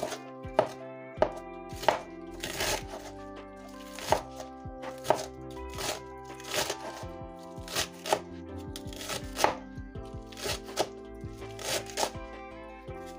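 Kitchen knife chopping celery and green onion on a cutting board: uneven strikes at about one or two a second, over background music with held, steady tones.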